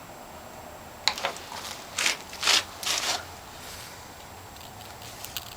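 Old things being handled and rummaged through in a trunk: a sharp click, then several short rustling scrapes a second or so apart, and a couple of faint ticks near the end.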